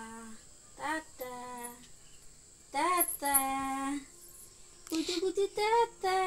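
Singsong cooing exchange between a woman and a baby: drawn-out, sung-like vowel sounds of baby talk in several held notes with short pauses, the longest and loudest about three seconds in.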